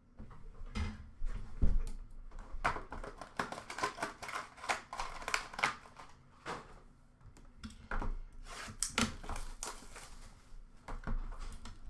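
Hockey trading cards and packs being handled and flipped through: a busy run of small clicks, taps and rustles.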